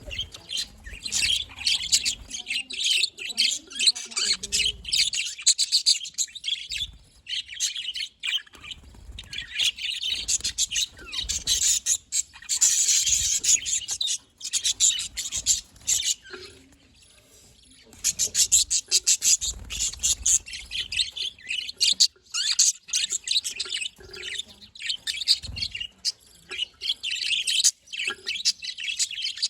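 Several budgerigars chirping and warbling in fast, high, chattering runs, with a short lull about halfway through.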